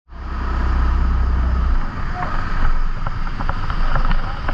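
A 14 hp rental kart engine running steadily, with a heavy low rumble that drops away after about two seconds.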